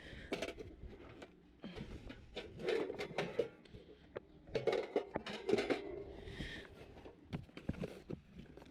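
Junk being handled and shifted about: scattered knocks, clinks and rustling, with a few busier patches of rummaging.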